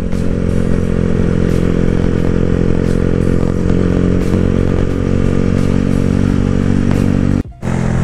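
Honda CB motorcycle engine running at a steady, even pitch while being ridden. The sound cuts out briefly about seven and a half seconds in.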